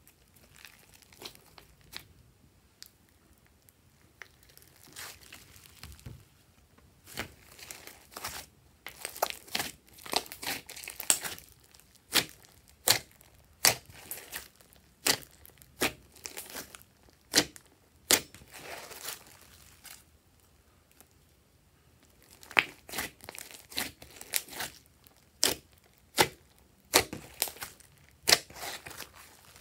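Hands kneading, stretching and folding glossy slime, making irregular sharp pops and crackles as trapped air is squeezed out. The pops are sparse in the first few seconds and again briefly around two thirds in, and come thick and fast in between.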